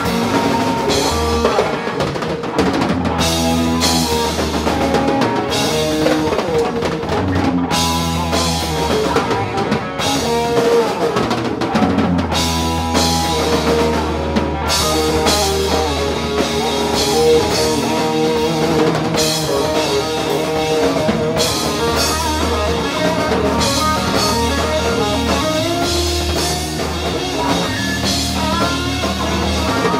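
Live rock band playing an instrumental stretch: electric guitar over a pounding drum kit.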